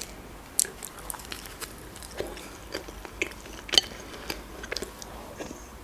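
Close-miked biting and chewing of a pizza slice: irregular crisp clicks and crackles, the sharpest a little under four seconds in.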